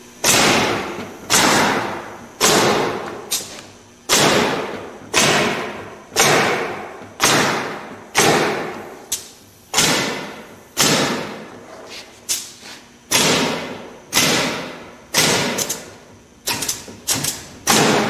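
Pneumatic framing nailer shooting nails through plywood sheathing into a wooden frame, about one shot a second, each a sharp bang that dies away. The shots come quicker near the end.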